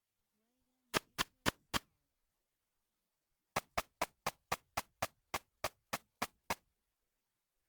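Song of the katydid Tettigoniopsis nyotaiensis, sung in ultrasound at about 70 kHz and made audible through a bat detector. It comes as sharp clicks: a run of four, a pause of nearly two seconds, then a run of twelve at roughly four a second.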